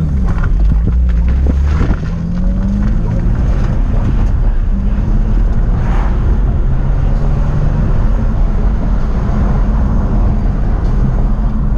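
Infiniti G35's 3.5-litre V6 engine heard from inside the cabin while driving, its note rising over the first few seconds as the car pulls out of a turn, then running steadily at cruise with wind and road rumble.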